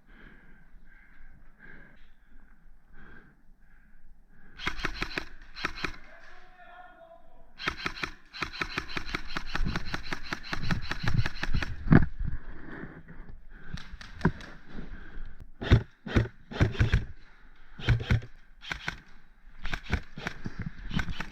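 Airsoft guns firing in rapid full-auto bursts, the longest lasting about four seconds near the middle, with shorter bursts later.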